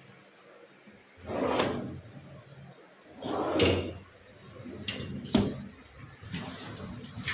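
Stainless steel pull-out basket drawer of a modular kitchen cabinet sliding out and back on its runners three times, with a sharp knock about five seconds in.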